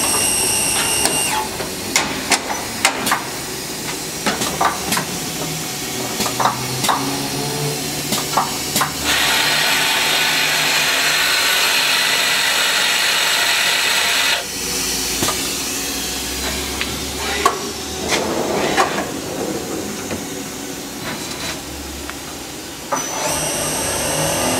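Tsugami S25D CNC Swiss-type lathe running, with a steady whine at the start and near the end, clattering knocks and clacks as its hood is lifted, and a hiss of about five seconds midway.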